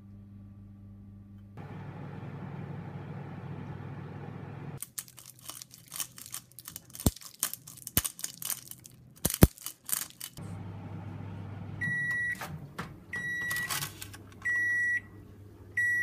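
Microwave oven running with a steady low hum. In the middle comes several seconds of crinkling and clicking, like parchment paper being handled. Then the hum returns and the microwave beeps four times, short even beeps about 1.3 s apart, signalling that the heating cycle has finished.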